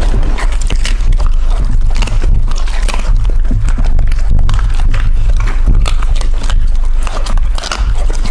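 Puppies and a kitten chewing and crunching on chicken feet close to a microphone: a dense, irregular run of crunches and clicks over a steady low hum.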